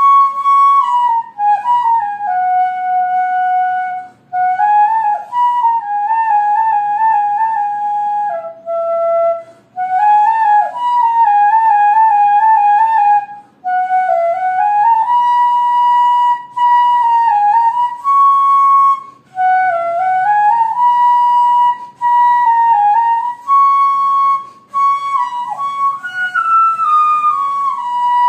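Background music: a solo flute melody, one line of held notes with trills and slides up between notes, broken by short pauses.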